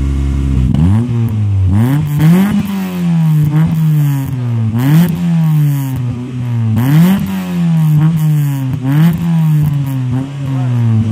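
Toyota Starlet engine being revved in repeated blips, about six in all. Each one jumps quickly up in pitch and then winds back down slowly toward idle.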